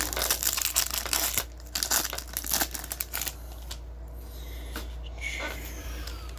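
Crinkling and rustling as trading cards and their plastic wrapping are handled, dense crackling for about three seconds, then quieter and sparser.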